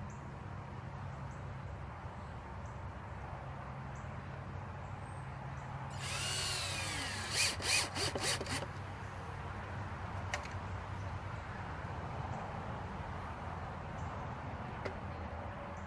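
Cordless drill running as it drives screws to fasten a wooden brace to a fence post: a steady low hum, then about six seconds in a louder whine that rises and falls in pitch, with a few sharp clicks.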